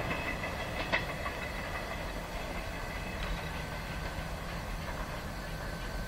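A train running at a distance, a steady low rumble, with a short click about a second in.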